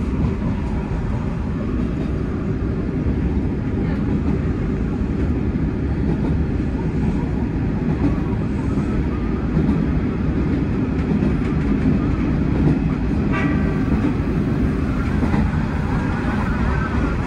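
Hanshin 9300 series electric train running at speed, heard from the driver's cab: a steady low rumble of wheels on rail and running gear. About three-quarters of the way in, the train's horn gives one short blast.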